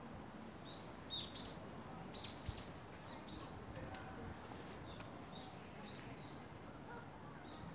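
Small birds giving short, high chirps now and then, several close together about a second in, over a faint steady background hum.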